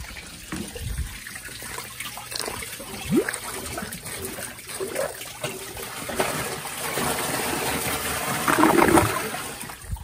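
Rubber plunger worked in the bowl of a 1992 Universal-Rundle Atlas toilet clogged by a washcloth, with water splashing and sloshing. The splashing grows in the second half and is loudest near the end.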